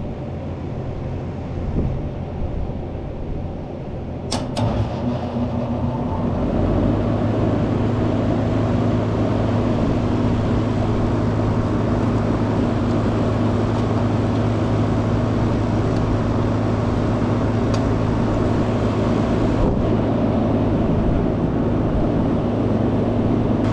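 Outdoor air-conditioning condensing unit starting up. A sharp click comes about four seconds in, then the compressor hum and condenser fan come up over a couple of seconds and run steadily.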